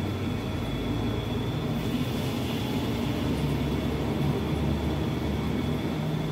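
Steady rumbling hum of a kitchen cooker hood fan and gas burner, with a thin high whine, while battered sweet potato slices fry in oil in a wok.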